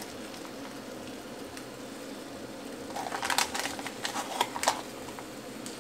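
Asparagus sautéing in butter and oil in a frying pan, a steady low sizzle, with a short cluster of clicks and taps about three to five seconds in.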